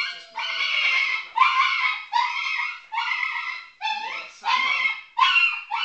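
Rhodesian Ridgeback puppy crying in repeated high-pitched yelps and whines, about two a second.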